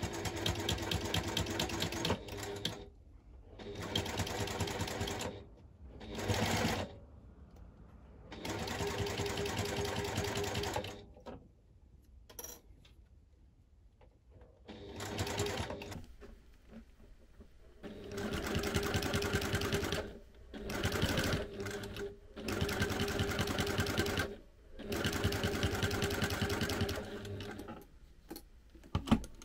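Domestic sewing machine with a walking foot top-stitching binding onto vinyl, running in repeated bursts of one to three seconds with short pauses between them as the work is guided along.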